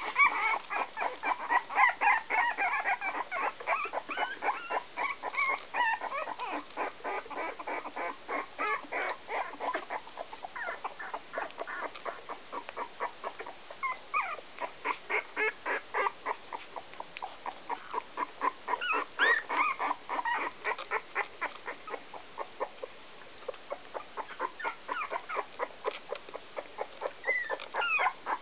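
Sixteen-day-old whoodle (whippet × miniature poodle) puppies squeaking and whimpering in short high calls, some gliding up or down in pitch, over the mother dog's fast, even panting at about four breaths a second.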